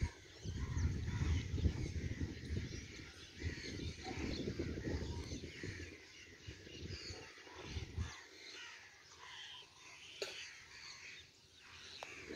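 Birds calling and chirping over an outdoor village soundscape, with gusts of wind buffeting the microphone as a loud low rumble through the first half and briefly again about eight seconds in.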